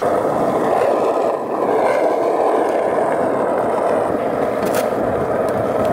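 Skateboard wheels rolling steadily over a rough tarmac path.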